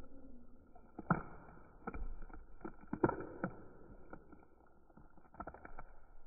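Slime being pressed, squished and pulled by hand against a tabletop, giving sticky pops and crackles over a soft squelching rustle, with the sharpest pops about a second in and about three seconds in.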